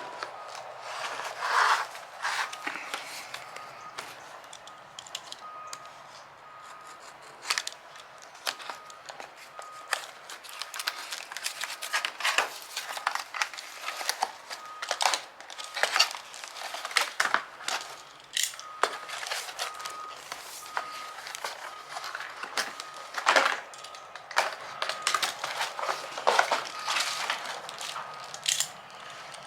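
Irregular crinkling, crackling and tearing handling noises, with a faint high tone that comes and goes.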